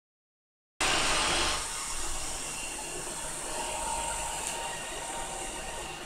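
Roomba robot vacuum running: a steady whir of its motor and brushes that starts about a second in, loudest in its first half-second.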